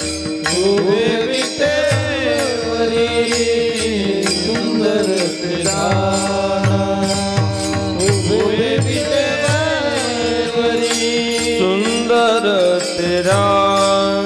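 Varkari bhajan: a man's voice drawing out long, bending devotional melismas over a steady drone, with percussion strikes keeping an even beat.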